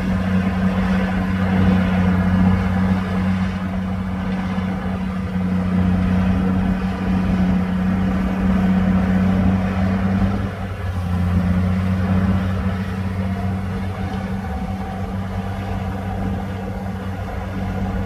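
A heavy diesel engine on a Komatsu D58P bulldozer runs steadily under load as the dozer pushes soil, a low, steady hum. The engine sound dips briefly about ten and a half seconds in.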